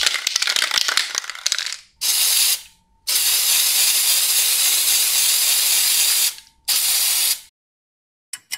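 Aerosol spray paint can rattling for a couple of seconds, then spraying in three hissing bursts: a short one, a long one of about three seconds, and another short one. A few quick clicks come near the end.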